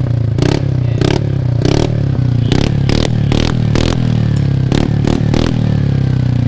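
TVS Ntorq scooter's single-cylinder engine running through an aftermarket Akrapovič-style double-barrel exhaust, with the throttle blipped over and over. Each quick rev drops back to a deep idle, and the blips come faster in the middle.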